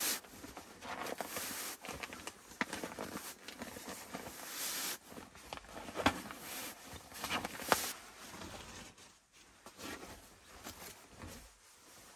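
Nylon sleeping bag rustling and swishing in irregular bursts as it is pulled out and spread across a bed, with a few sharper crackles of the fabric.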